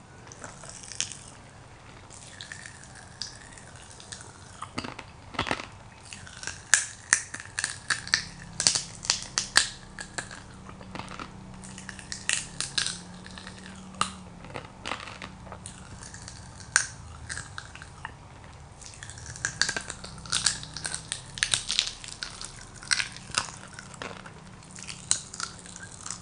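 Crack-Ups fruit popping candy crackling and popping in the mouth: many sharp, irregular little pops that come in flurries, thickest around the middle and again near the end.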